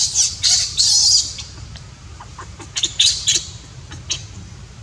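Baby macaque crying: a run of short, high-pitched squealing cries, several in quick succession in the first second or so and a few more around three seconds in.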